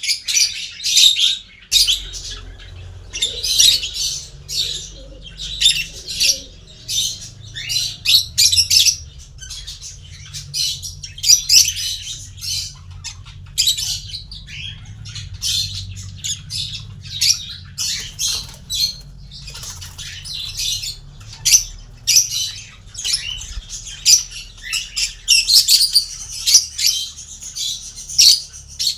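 Small pet parrots chirping and squawking continuously, many short high calls overlapping. A steady low hum comes in about two seconds in.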